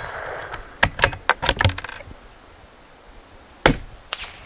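The ring of a struck steel target dying away, then a run of metallic clicks as the bolt of a .22 rimfire bolt-action rifle is worked to reload. About three and a half seconds in the rifle fires a Remington Thunderbolt round, followed half a second later by a fainter knock. The round is subsonic, a low-velocity shot with no supersonic crack.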